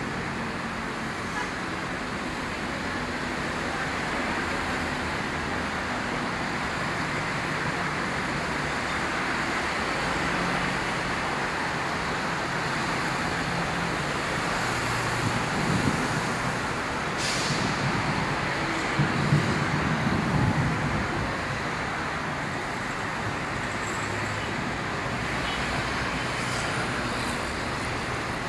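Steady city road traffic: a continuous wash of tyres and engines on a busy road, with a couple of brief louder rumbles of passing vehicles part-way through.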